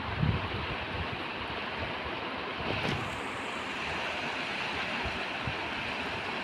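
Steady wash of lake water and wind, with gusts buffeting the microphone as low rumbles.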